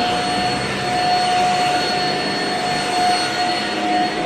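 Shark vacuum cleaner running steadily: a high motor whine held at one pitch over the rush of air.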